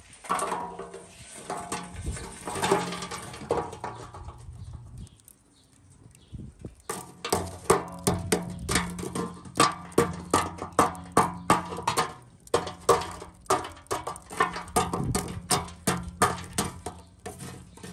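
Lumps of burning lump charcoal rattling as they are tipped from a chimney starter into the grill. After a short pause they clink and scrape repeatedly, two or three sharp knocks a second, as metal tongs push the coals around, over a faint low hum.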